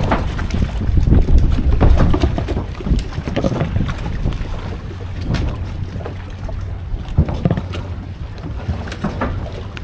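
Wind buffeting the camera microphone, with water sloshing around the fishing kayaks and scattered small knocks of hull and gear.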